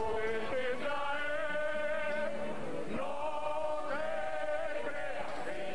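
Rondalla of men singing together in long held notes, accompanied by their strummed guitars.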